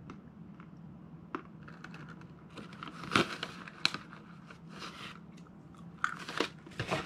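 Chewing and crunching on Virginia peanuts, with small clicks, and the plastic snack bag crinkling as a hand reaches in. The crinkling is loudest about three seconds in and again near the end.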